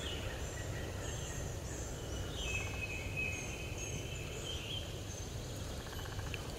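Small birds singing and chirping with short high whistled notes and slurred phrases over a steady low outdoor rumble.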